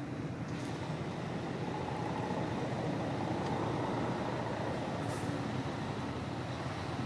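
Steady low rumble of a motor vehicle going by, swelling slightly through the middle and easing off near the end.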